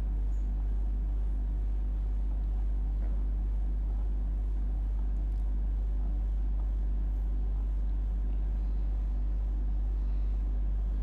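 A steady low hum with faint background noise and no change in level.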